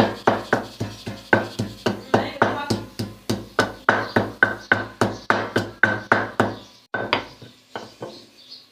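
Peeled garlic being pounded with a pestle in a mortar: quick, even strikes about four a second, with a slight ring on each. The pounding stops about seven seconds in, followed by a few last scattered strikes.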